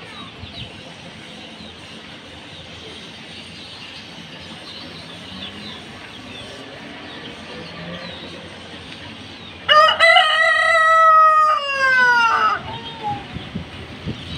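White heavy buff rooster crowing once, about ten seconds in: one loud call of about three seconds whose pitch falls at the end. Before it, only low background noise.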